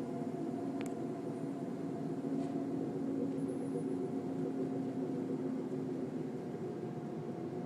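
Steady low droning hum with several held tones over a noisy rumble, the kind of sound passed around as a trumpet-like 'strange sound in the sky'; a single short click about a second in.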